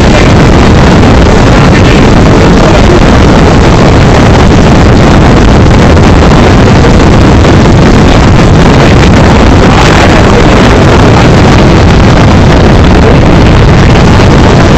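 Loud, steady rumbling noise with heavy distortion; the recording is overloaded and clipped throughout, with no clear speech standing out from it.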